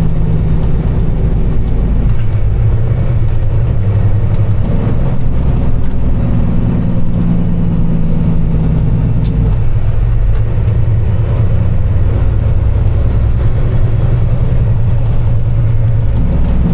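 Kenworth semi truck's diesel engine running steadily, its low note shifting a few times.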